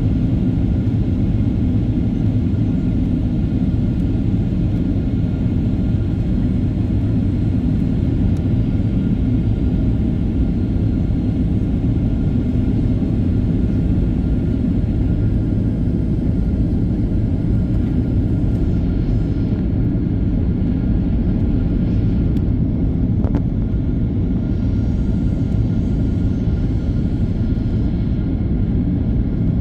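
Steady cabin noise inside a Boeing 737-800: a low, even rumble of airflow and the CFM56-7B engines, with faint steady tones above it.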